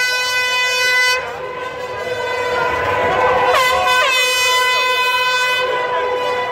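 A horn sounding one steady high note almost without a break, joined about three and a half seconds in by shorter horn toots that drop in pitch as they end, over crowd noise.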